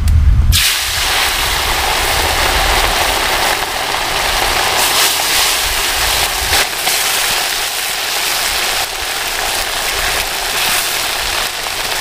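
Hot oil in a wok sizzling hard as small fish fry. The sizzle starts suddenly about half a second in, then holds steady.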